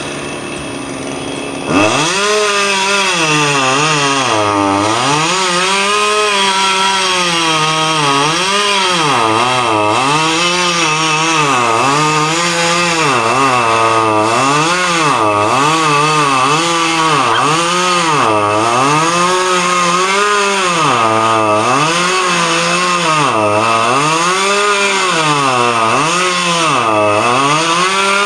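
Two-stroke chainsaw running at full throttle while cutting wood, starting about two seconds in. Its pitch dips and recovers about once a second as the chain bites into the wood and frees up again.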